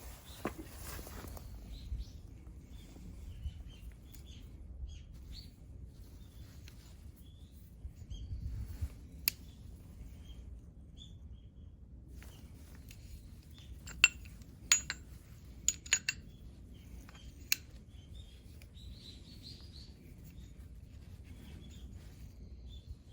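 Metal tools and transmission parts clinking and tapping against each other, a handful of sharp ringing clinks mostly in the middle of the stretch, the loudest few close together, over a low steady hum.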